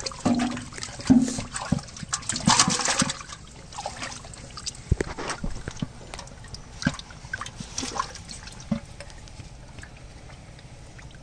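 Water splashing and sloshing in a metal pot as hands move among live carp, with irregular wet splashes. It is busiest in the first few seconds, then thins to scattered small splashes and drips.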